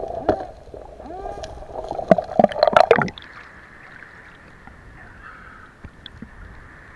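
Water sounds picked up by a camera held underwater: a steady hum with bubbling and knocks, loudest in a cluster of splashy hits just before the camera breaks the surface about three seconds in. After that, quieter water lapping and sloshing at the surface.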